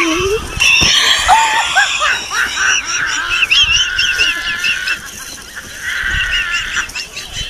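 Several women laughing hard in high-pitched shrieks, easing briefly about five seconds in and then picking up again.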